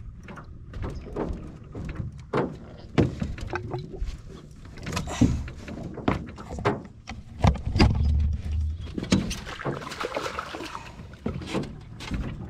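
Irregular knocks, bumps and handling noise from movement in a small aluminum boat, with a heavier low thud about eight seconds in.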